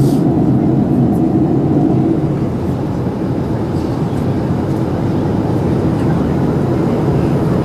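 Steady in-flight cabin noise of a Boeing 737-800, heard from a window seat over the wing: an even low rumble of its CFM56 jet engines and rushing airflow that dips slightly about three seconds in.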